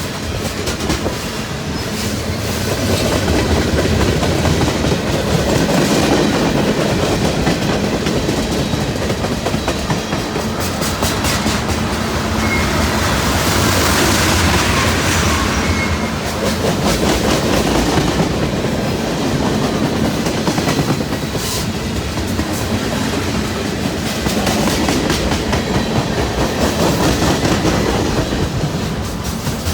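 Long freight train rolling past, its steel wheels clacking over rail joints in clusters of clicks over a steady rumble that swells and eases.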